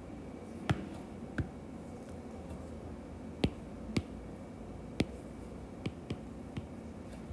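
A stylus tip tapping on a tablet's glass screen: about eight short, sharp taps, irregularly spaced, over a faint steady hiss.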